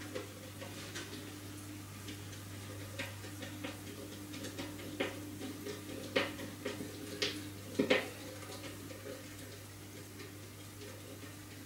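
Hand screwdriver turning a wood screw through a wooden board into a wooden chess pawn: irregular small clicks and creaks, the loudest few about six to eight seconds in.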